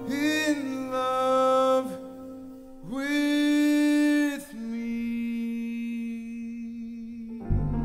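Live jazz ballad: a male singer holds long notes over soft band accompaniment. Two loud sustained notes are followed by a quieter, lower held note, and a fuller band chord with bass comes in near the end.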